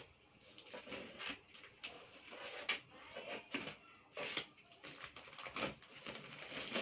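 A cardboard parcel being unpacked: packing tape cut, flaps pulled open and plastic-wrapped items lifted out, giving irregular rustles and crinkles.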